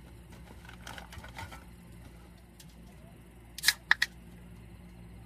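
Quiet rustling as a soft cooler bag is opened and rummaged, then three sharp clicks in quick succession near the end as a drink can is handled.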